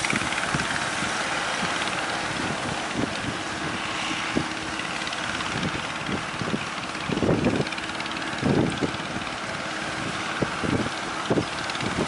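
Wash of breaking surf with gusts of wind buffeting the microphone, and a faint steady engine hum underneath from motorized fishing boats.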